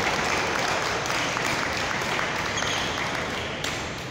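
Spectators clapping in a large sports hall between rallies of a badminton match, the applause slowly dying away.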